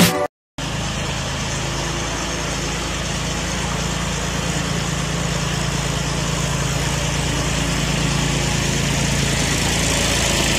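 Tractor engine running steadily as it drives along, pushing a tyre scraper over a concrete barn floor: a low hum under a broad rushing noise. It starts after a short silence about half a second in and grows slowly louder.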